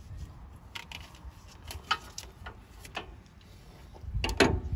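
Hand tools and metal parts clinking and knocking as a mechanic works by hand in a backhoe loader's engine bay: scattered single knocks, with a louder cluster of knocks near the end.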